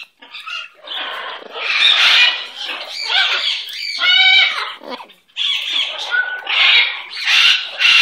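Blue-fronted Amazon parrot calling: a run of raspy squawks and chattering calls, with one clearer, more tuneful call about four seconds in.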